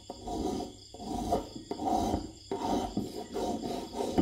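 Metal hand file rasping in repeated strokes, about six, across the end of a copper wire resting on a wooden block, shaping the wire to a point for a homemade fishing hook.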